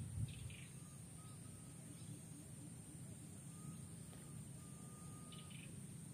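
Quiet outdoor background: a faint low rumble and a steady high-pitched hiss, with two brief faint high chirps, one just after the start and one near the end.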